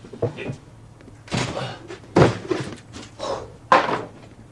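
A cardboard box and the things in it being set down and shifted on an office desk: a run of thunks and knocks with rustling in between, the loudest two about two seconds in and near the end.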